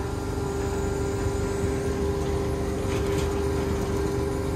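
Diesel tractor engine idling steadily, a constant hum with one strong tone over a low rumble.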